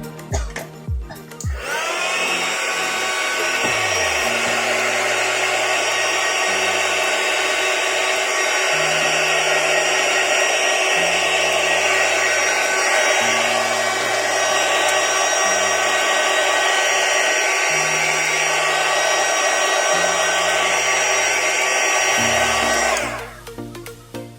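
Handheld electric air blower switched on about two seconds in, spinning up to a steady whine and rush of air, and cut off near the end. Background music plays underneath.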